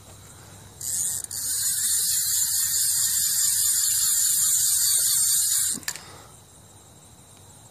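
Spinning fishing reel's drag buzzing as the kite pulls line off against it. The buzz is loud, steady and high-pitched; it starts abruptly about a second in, breaks briefly, and cuts off suddenly about two seconds before the end.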